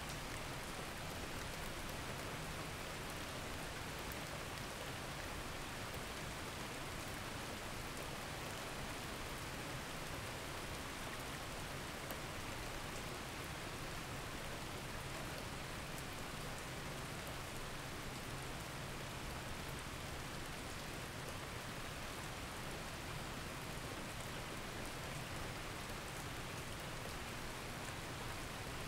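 Steady rain recording, an even wash of rainfall with faint drop ticks, used as the audible cover track of a subliminal audio.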